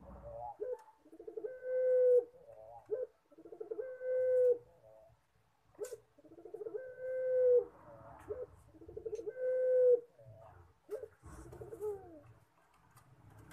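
Puter pelung (collared dove) cooing in repeated phrases, about every two and a half seconds. Each phrase has a rippling run of short notes and one long held note, a drawn-out coo likened to a person crying. A falling note comes near the end.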